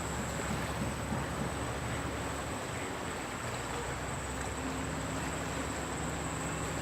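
Steady rush of a fast-flowing river current, with a thin, steady high whine and a faint low hum underneath.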